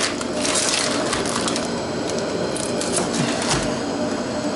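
Rustling, crinkling and light clattering of kitchen items being handled, with many small clicks and knocks, busiest at the start and again a little past halfway.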